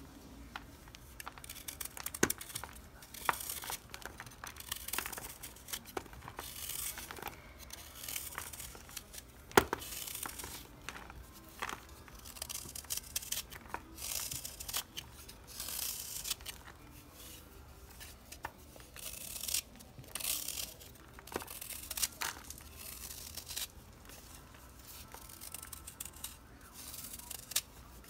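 A knife blade shaving a pressed block of Comet cleanser and baking soda: repeated short scraping strokes as chalky flakes come away and crumble, with a sharp click about a third of the way in.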